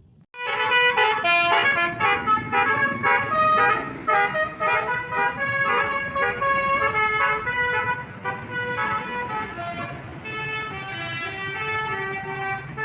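Multi-tone 'telolet' bus horn playing a quick run of melodic notes, starting suddenly just after the start and going on throughout, a little quieter near the end.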